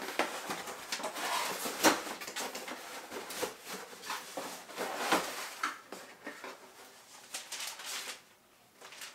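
Cardboard shipping box and its packing being handled and opened by hand: irregular rustling, scraping and small knocks, with one sharper knock a little under two seconds in, stopping about eight seconds in.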